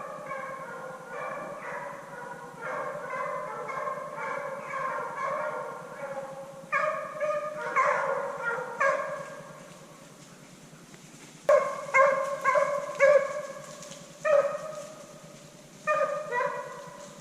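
A pack of hunting dogs baying while running a deer's trail. Several voices overlap in a steady chorus at first, then after a short lull come single loud bays.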